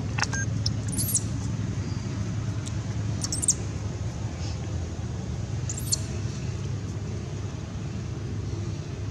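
Steady low outdoor rumble, with three short, very high-pitched chirps about a second, three and a half seconds and six seconds in.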